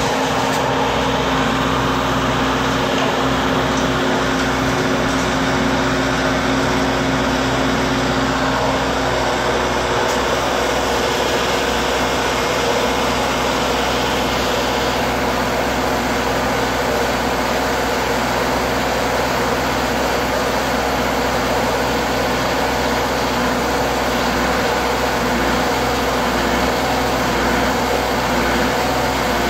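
Closed-cell spray foam insulation being sprayed with a PMC AP-2 spray gun, fed by a PMC PH-2 proportioner rig: a loud, steady hiss over a machine hum. A low tone in the hum stops about a third of the way in.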